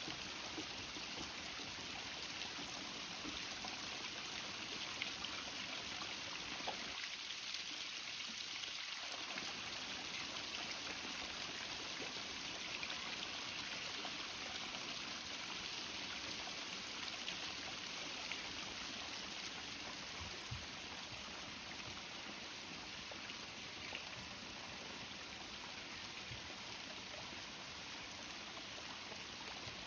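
Small pond fountain's running water splashing and trickling steadily.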